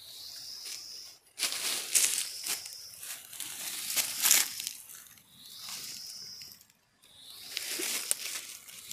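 Dry bamboo leaves and leaf litter crunching and crackling as someone pushes through them, in two loud stretches with sharp snaps. Between them a high steady buzz starts and stops.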